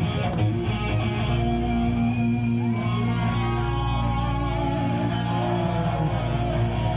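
Live rock band playing loud through the venue PA, led by electric guitar through Marshall amps. The guitar's notes bend and slide in pitch over held low notes.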